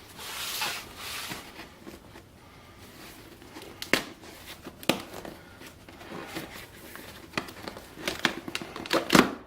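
A cardboard box being opened by hand: a short tearing rip about the first second, then cardboard flaps and paper rustling, with a few sharp snaps and knocks, the loudest near the end.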